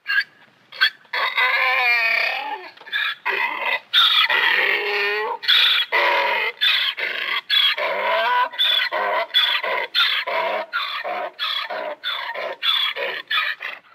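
Donkey braying: a few long, gliding hee-haw calls, then a run of shorter, quicker heaves, about two a second.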